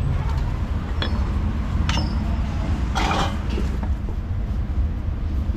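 Steady low rumble of street traffic. Over it come a few light clicks and one short clatter about three seconds in, as utensils and food are handled at a wooden chopping block.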